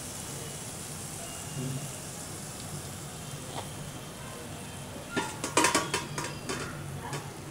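Beaten egg hitting a hot frying pan of fried onion and spices and sizzling steadily. About five seconds in, a short run of clicks and knocks against the pan.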